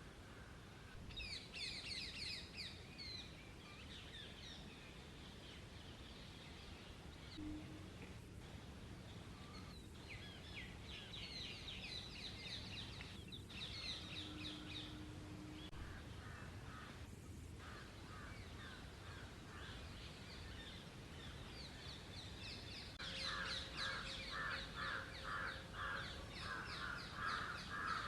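Birds calling outdoors in bursts of rapid, repeated chattering notes, several times and loudest near the end, over a steady low background noise.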